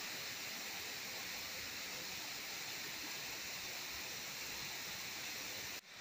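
Steady rushing of falling water from a waterfall and stream. It breaks off briefly near the end.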